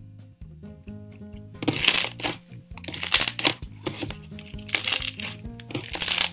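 Floam, a glue slime packed with foam beads, crackling and crunching as hands squeeze and knead it, in four bursts starting about one and a half seconds in. Background music plays throughout.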